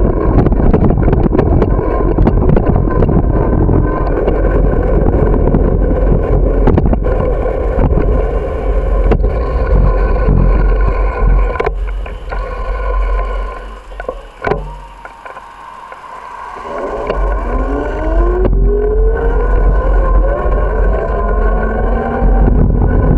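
Wind buffeting the microphone and road rumble from a moving bicycle, with a faint steady whine. Near the middle it quietens sharply for a few seconds as the bike slows, then a rising whine comes in as it picks up speed again.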